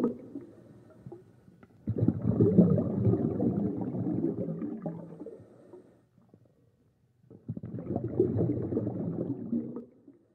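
Scuba diver's exhaled bubbles from the regulator, heard underwater: two long bursts of low bubbling and gurgling, one starting about two seconds in and one about seven seconds in, with quiet gaps between breaths.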